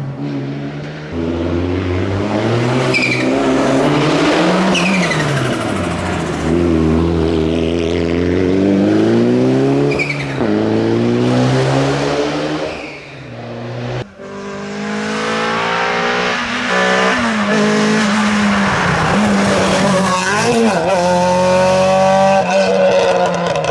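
Classic rally cars driven hard on a stage, engines revving up and dropping back repeatedly as they work through the gears. The sound breaks off abruptly a little over halfway through and a second stretch of hard running follows.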